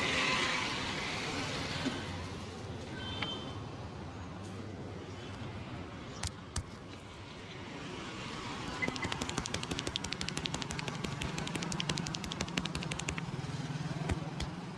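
Barber's hands doing rapid percussive tapping massage: a fast, even run of light slaps, many a second, starting about nine seconds in, over a steady hum of street traffic.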